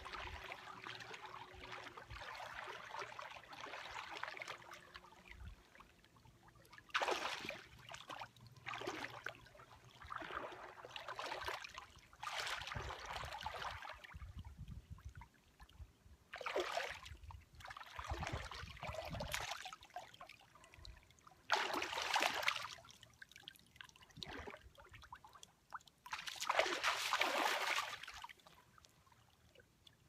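Shallow water splashing and sloshing as a person crawls through it on hands and knees toward the shore, in a string of separate splashes one to three seconds apart.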